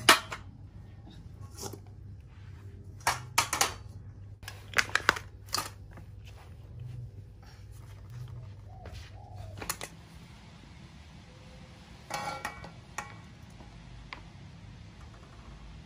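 Sharp clicks and knocks of a portable gas stove and cookware being handled on a tiled floor, coming in short clusters, with another cluster about twelve seconds in.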